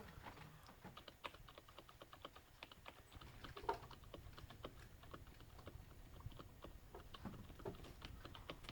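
The space bar of a Topre silent keyboard, with its capacitive rubber-dome switches, tapped gently over and over: a run of faint, soft clicks, several a second and a little uneven.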